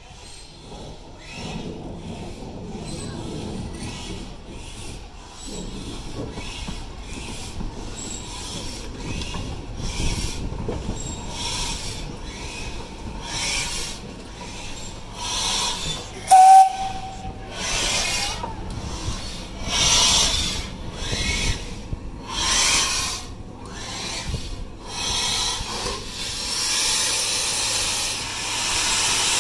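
Steam locomotives at low speed: a BR Standard Class 4 tank engine chuffs past in a steady rhythm of exhaust beats with steam hissing, and gives one short whistle toot about halfway through. Near the end a loud, steady hiss of steam comes from 80151's open cylinder drain cocks as it moves off.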